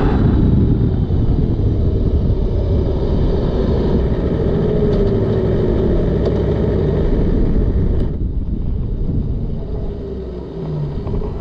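Aprilia Tuono motorcycle running while slowing down, shifted down from fourth to third and then into neutral, with steady wind rush on the onboard microphone. About eight seconds in the wind rush drops away, leaving the engine running at low revs.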